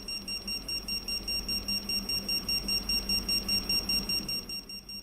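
Alarm system LCD keypad beeping in short, evenly spaced high-pitched pulses, about five a second: the exit-delay warning sounded after the system is armed. The beeps grow quieter near the end.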